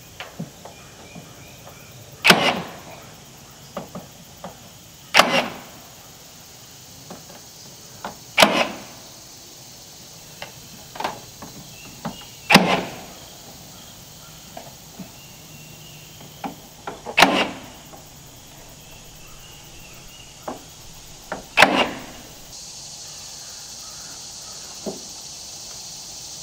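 Cordless nail gun firing nails into wooden trim overhead: six sharp shots, one every three to four seconds, with lighter clicks and taps between them.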